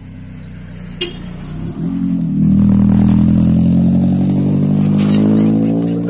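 A car driving past close by. Its engine grows louder a little over two seconds in and stays loud until near the end. A sharp click comes about a second in.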